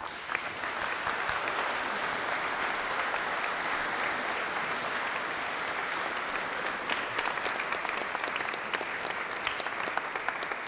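Audience applause: many people clapping steadily together, a dense patter of hand claps.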